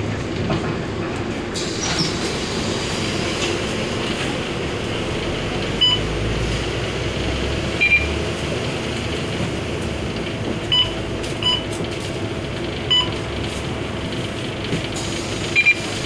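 Steady drone of an Iveco Euromidi low-entry city bus under way, heard from inside the cabin, with several short high electronic beeps a second or more apart, two in quick succession near the end.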